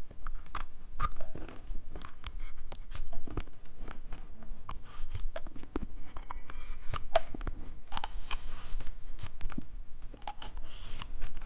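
Close-miked eating of watermelon bubble gum candy: irregular sharp crunches, clicks and smacks as it is bitten and chewed.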